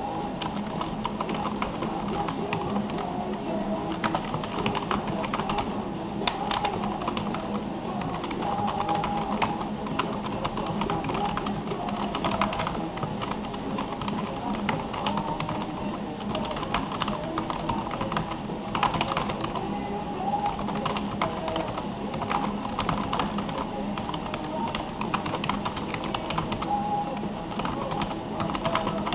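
Computer keyboard being typed on fast and without pause, a dense run of key clicks, during a timed typing test. Background music plays underneath.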